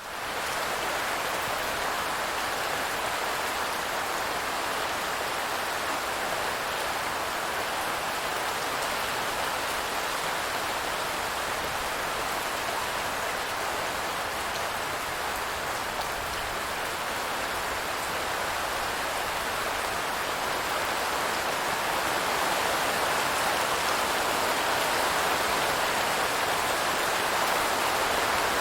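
Steady rain falling: a dense, even hiss that fades in at the very start and grows a little louder near the end.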